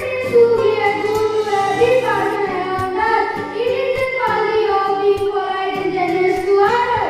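Children singing a slow song together in long held notes, with instrumental accompaniment.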